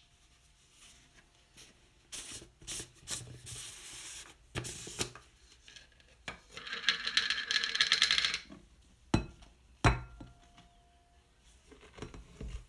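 Handling noises: rubbing and scraping with scattered clicks, then a dense rasping crackle that lasts about two seconds past the middle, followed by two sharp knocks less than a second apart.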